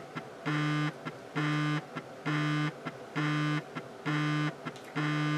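A low buzzing electronic beep repeating evenly about once a second, each tone lasting just under half a second.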